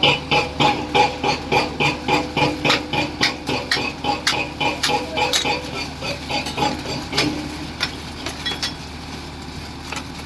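Rapid, regular metallic strikes, about three a second, from work compacting fresh concrete at the formwork edges. The strikes thin out and fade after about seven seconds, over a steady machine hum.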